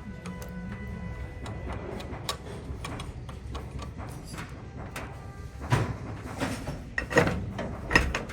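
Clicks and knocks of tools and metal parts being handled during starter-motor work, with a faint metallic ring dying away in the first second and three louder knocks in the second half.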